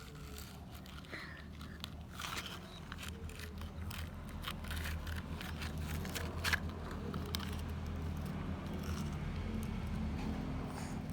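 Toy construction vehicles scraping and crunching through sand, with scattered sharp clicks, over a steady low hum.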